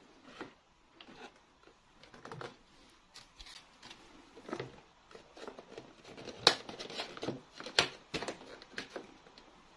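Small plastic toy pieces being handled: irregular light clicks and taps, with two sharper clicks about six and a half and eight seconds in.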